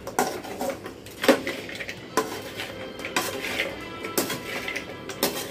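A metal spoon scraping and knocking against a metal pan as fried idli pieces are stirred through a masala, in irregular strokes about every half second to a second, the loudest knock about a second in.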